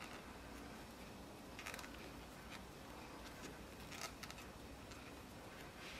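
Faint handling sounds of crochet work: a crochet hook pulling yarn through stitches, with a few light clicks, one about a second and a half in and a cluster about four seconds in, over quiet room tone.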